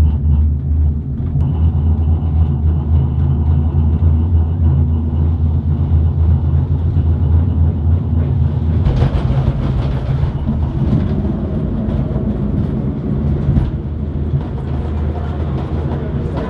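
Steady low rumble of a Skyrail cable-car gondola running along its cable, with a rougher, noisier stretch from about nine seconds in that lasts about five seconds.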